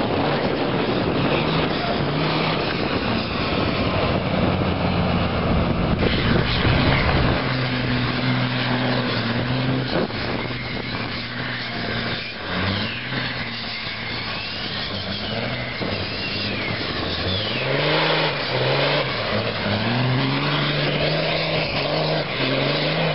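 Semi-truck tractor's diesel engine revving hard during a drift, its pitch rising and falling again and again in the second half, over the hiss and squeal of spinning tyres.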